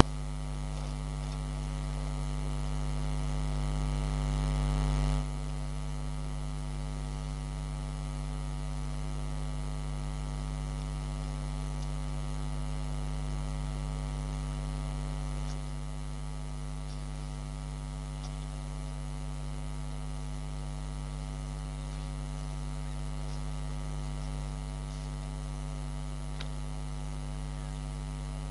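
Steady electrical mains hum, a low buzzing drone with many overtones, picked up on the camera feed's audio. It drops noticeably in level about five seconds in, then holds steady.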